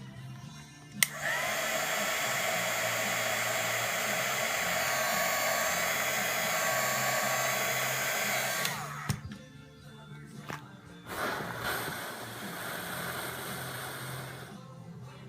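Handheld hot-air blower used to heat the device, switched on with a click about a second in. It runs with a steady loud hiss, then cuts off around nine seconds in with its fan winding down, and a shorter, quieter run follows.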